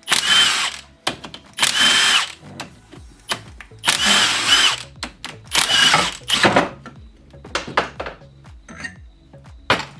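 Handheld power tool, a drill or driver, run in four bursts of about a second each with a whining motor tone, with light tool clicks between and a short final burst near the end, as it works fasteners during the teardown of a 4L80E transmission pump.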